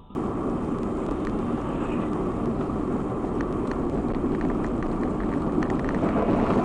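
Steady road and engine noise of a moving car, recorded by a dashcam, with a few faint clicks.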